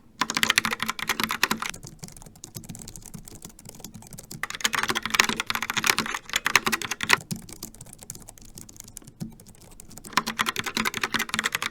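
Typing on a Logitech keyboard: fast runs of key clicks in three louder spells, about a second and a half to three seconds each, with lighter, slower key taps between them.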